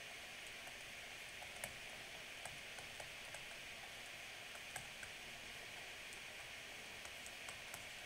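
Faint, irregular taps and light scratches of a stylus writing on a tablet screen, over a steady background hiss.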